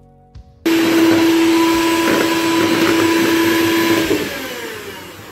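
Electric hand mixer switched on about half a second in, its beaters whirring steadily through cake batter in a plastic bowl. Near the end it is switched off and its motor winds down with falling pitch.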